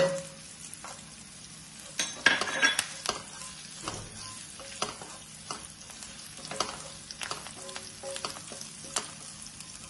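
Curry leaves, green chillies, garlic and freshly added ginger sizzling in coconut oil, stirred with a wooden spatula that scrapes and taps against the pan in sharp clicks. The stirring is loudest about two seconds in.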